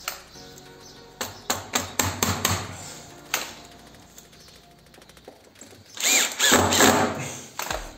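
Cordless drill running for about a second and a half, starting about six seconds in, driving a screw and washer to fix chicken wire to the wall. Before it come a few seconds of sharp clicks and rattles as the wire mesh and fixings are handled.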